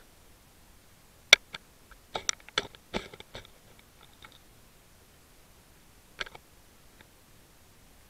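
Scattered sharp clicks and knocks heard underwater through the camera's housing: one loud click just over a second in, a quick cluster of them from about two to three and a half seconds, then two more near six and seven seconds.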